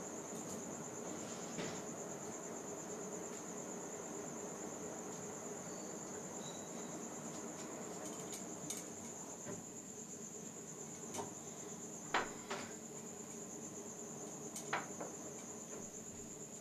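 Crickets trilling steadily at a high pitch over a low, steady household hum. A few faint knocks and clinks sound at scattered moments, the sharpest about two-thirds of the way through.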